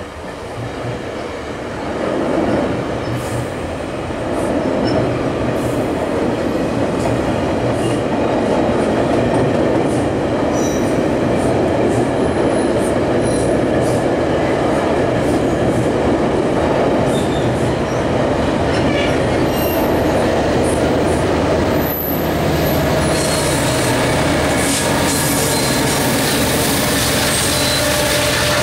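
Twelve-car GO Transit bilevel commuter train rolling over a steel truss bridge: a dense rumble of wheels on rail and bridge that builds over the first few seconds and then holds steady. About three-quarters of the way through, a low steady drone joins the rumble.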